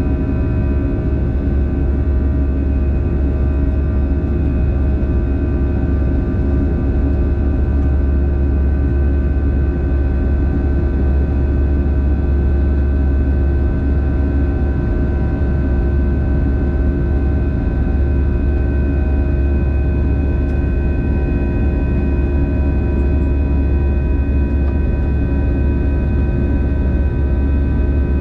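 Airbus A320 cabin noise in the climb after takeoff: the jet engines and airflow make a steady, loud low rumble, with several steady whining tones over it.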